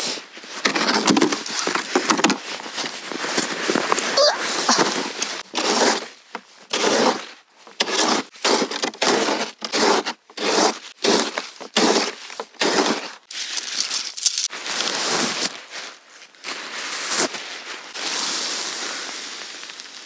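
Plastic sled scraping and scooping packed snow in repeated strokes, crunching and scraping, to clear and level a tent site; near the end it gives way to a steadier rustle.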